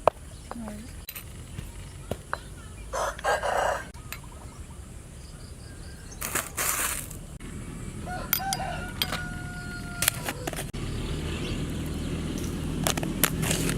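A rooster crowing, a held call with a steady pitch about eight seconds in, among short noisy bursts and scattered sharp knocks and clicks.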